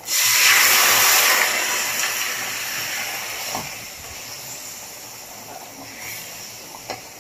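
Hot butter-fried garlic and tomato hitting a pot of boiling taro: a sudden loud sizzling hiss that fades over several seconds. A couple of faint spoon clinks against the pan follow.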